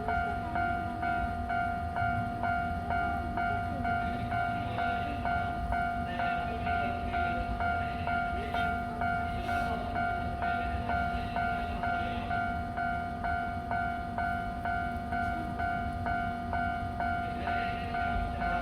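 Level-crossing warning bell ringing on and on at about two strikes a second over a steady ringing tone, with a low rumble underneath from the E353 train standing at the crossing.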